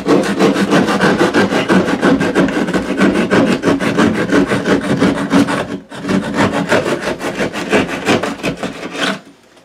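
Hand drywall jab saw cutting through gypsum drywall in quick, rapid strokes along a traced line, with a short break partway through and stopping near the end.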